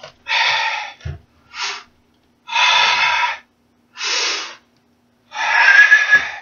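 A karateka's forceful, audible breaths: six sharp breaths each under a second, the last the longest and loudest. This is focus breathing as he readies a palm strike to break a stack of concrete bricks. A brief dull thump comes about a second in.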